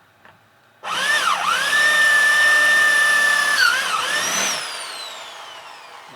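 Electric drill boring into a rivet head on a washing-machine motor cover. The drill's whine starts about a second in and dips in pitch as the bit bites. It holds steady, dips again, then winds down slowly as the trigger is released.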